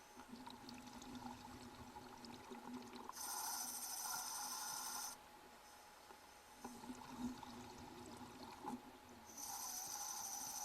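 Water bubbling and trickling, with two spells of steady hiss of about two seconds each.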